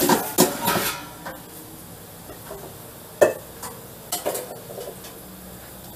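Kitchen clatter of utensils and dishes being handled, with one sharp knock about three seconds in and a few light clicks after it.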